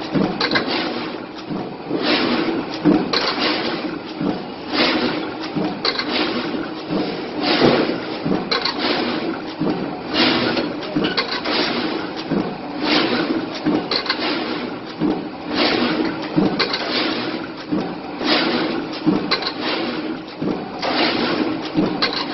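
Corrugated-cardboard box-making machine running, fed by hand with sheets. It makes a repeating clatter of two or three quick strokes about every two and a half to three seconds over a steady hum.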